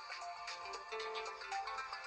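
Nokia 2630 ringtone playing: a synthesized melody of short changing notes over a beat.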